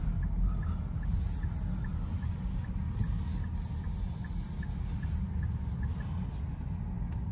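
Inside the cabin of a Nissan Ariya electric SUV moving slowly: a steady low road and tyre rumble with the air-conditioning fan blowing, and no engine sound. A faint, even ticking runs along at about three ticks a second.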